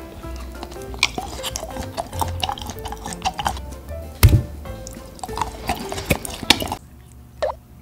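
Biting and chewing a chocolate candy shaped like a set of false teeth: a run of short cracks and clicks, with a louder thump about four seconds in, over background music.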